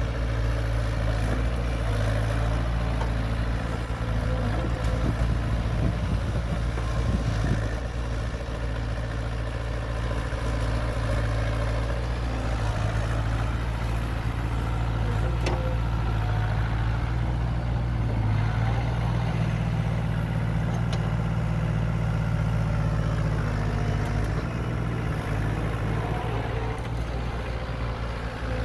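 Sumitomo S160 excavator's diesel engine running steadily while the machine digs and lifts mud out of a ditch.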